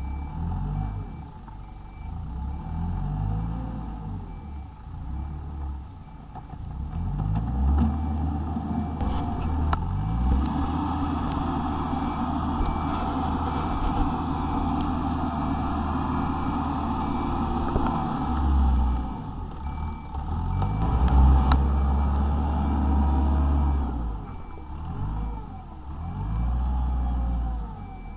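Wheeled excavator's diesel engine working under hydraulic load, revving up and down repeatedly as the boom and bucket dig and move soil.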